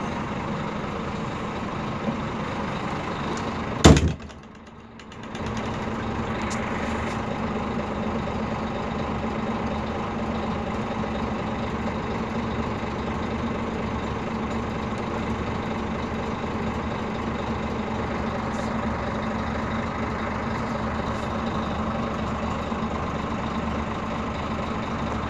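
Scania bus diesel engine running steadily, heard from inside the bus, with a constant low drone. A single sharp knock about four seconds in is followed by a brief dip in the sound before the drone returns.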